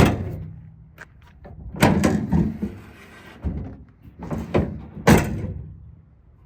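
Pickup tailgate being worked on its hinges, giving about four heavy metallic clunks, each with a short ring.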